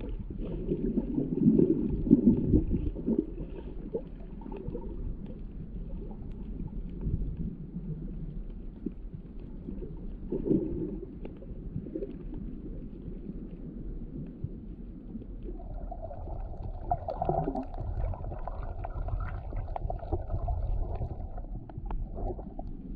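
Underwater sound picked up by a submerged camera: a low rumbling and gurgling of water moving past the microphone, loudest in the first few seconds. A steady hum comes in about two-thirds of the way through and stops shortly before the end.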